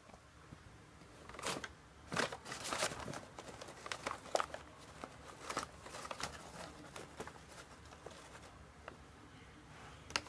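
Brown paper bag crinkling and rustling in scattered bursts as a cat claws and bites at it. The bursts thin out for the last few seconds.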